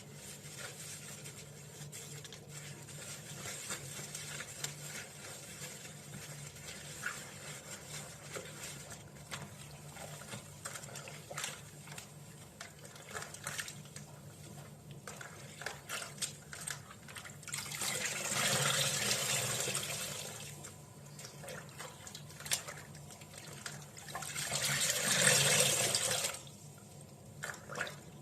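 Scattered small clicks and taps, with two stretches of rushing water, each a few seconds long, about two-thirds of the way in and again near the end.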